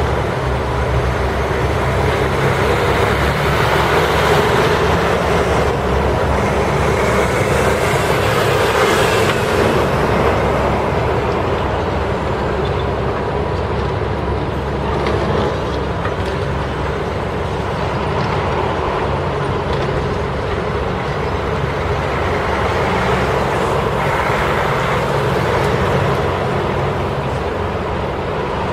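Heavy demolition excavators at work on a concrete building: diesel engines and hydraulics running steadily, with louder rough stretches now and then as the machines break into the structure.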